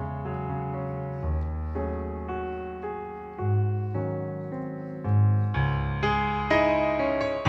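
Piano playing a slow instrumental introduction, with chords and bass notes changing every second or two. It grows louder in the last two seconds.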